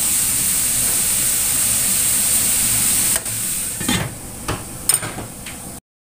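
Diced chicken sizzling in a stainless steel wok. About three seconds in the sizzle drops, and several metal knocks follow as a domed stainless lid is set on the wok to braise the chicken. The sound cuts off suddenly near the end.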